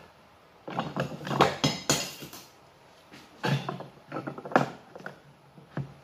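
Hard plastic parts knocking and clinking as PVC pipe and fittings are handled: a quick run of clicks and knocks about a second in, another around three and a half seconds, and one more near the end.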